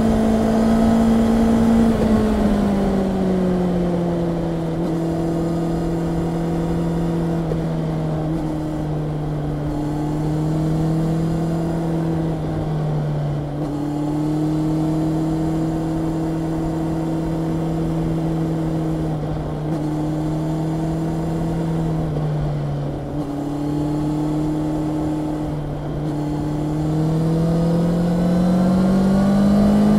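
Honda CB650R inline-four engine running on the move. Its note steps down about two seconds in, holds fairly steady with small dips, and climbs again near the end.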